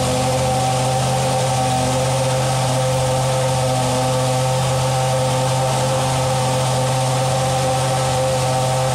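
A steady mechanical drone at a constant pitch and level, engine-like, with no revving or change.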